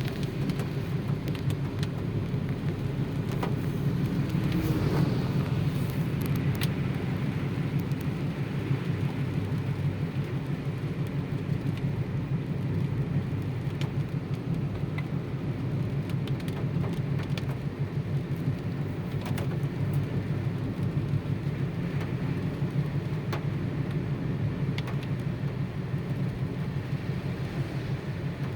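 Car on the road in the rain: a steady low rumble of engine and tyres, with scattered light ticks throughout.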